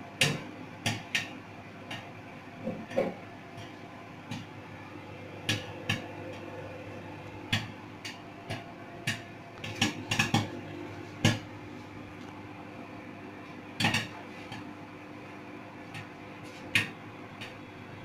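Popcorn kernels popping one at a time in a lidded bowl inside a running microwave oven: sharp, irregular pops, some close together and some seconds apart, over the oven's steady hum.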